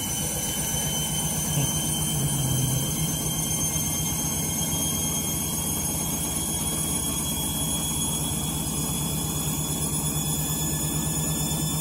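Candy Grande Vita 7 kg washing machine on its final spin: the drum is speeding up, with a whine slowly rising in pitch over a steady rhythmic drone. The owner takes the noise for the drum bearings on the way out.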